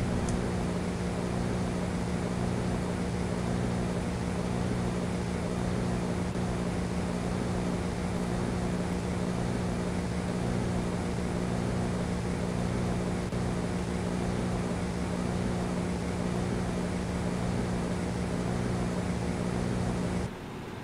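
A steady low hum made of several level tones, with hiss above it, unchanging through the footage and dropping a little just before the end.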